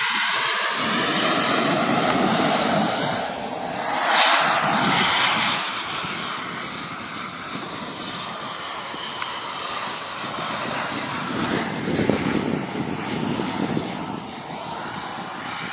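Fighter jet's engines during low passes overhead: loud rushing jet noise, strongest over the first six seconds with a surge about four seconds in, then lower and steadier, swelling again around twelve seconds.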